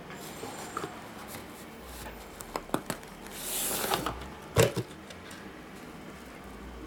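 Padded nylon lens case being pulled up out of a cardboard box, rustling and scraping against it with a few light knocks. A louder thump comes about four and a half seconds in as the case is set down on a wooden table.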